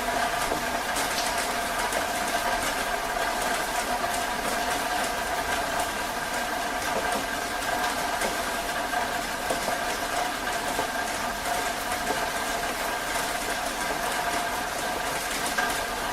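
Heavy rain falling steadily, an even hiss, with a steady hum of several tones running underneath.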